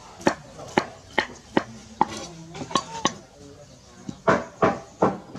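Plastic bowl knocking and clattering inside a plastic bucket as a monkey rummages in it: about ten sharp knocks, roughly two a second, pausing briefly before a louder run of knocks near the end.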